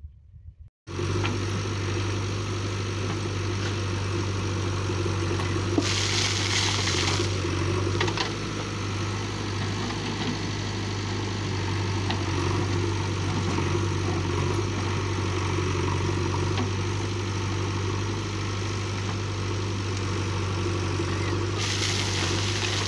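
JCB 3DX backhoe loader's diesel engine running steadily under work, with a strong low hum. It starts abruptly about a second in, and a brief hissing rush comes about six seconds in and again near the end.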